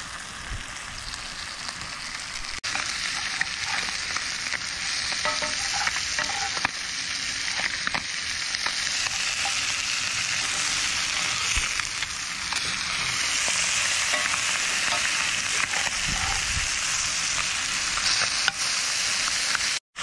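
White bass fillets frying, a steady sizzle with scattered small pops and crackles. It briefly cuts out near the end.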